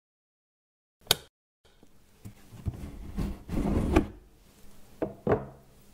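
A desk lamp's switch clicks on, then a cardboard box is slid and handled, its lid rubbing and knocking as it is lifted, with a loud thump near the middle and two lighter knocks near the end.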